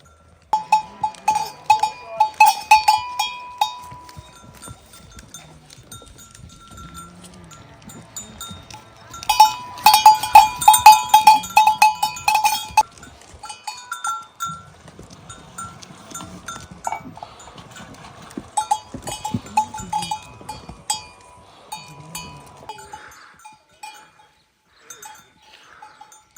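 Metal animal bells on livestock clanking irregularly as the animals move, each clank ringing with a clear tone; two louder spells of rapid clanking, one near the start and one about ten seconds in, with softer, sparser clanking between and after.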